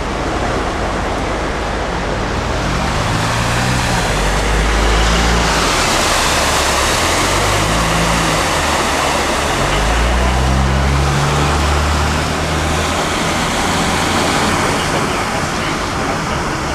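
Vehicles driving through deep floodwater: an engine note rising and falling under a heavy rush of splashing water thrown up by the tyres, loudest about five seconds and ten seconds in.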